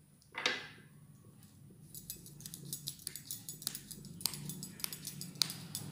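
Metal bangles clinking in quick, irregular ticks as hands shape and roll a ball of gulab jamun dough between the palms, with a short scrape about half a second in.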